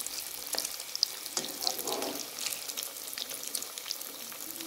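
Breaded chicken-and-potato bread rolls deep-frying in hot oil over a low flame: a steady crackling sizzle of many small pops, while a slotted spatula moves them in the oil.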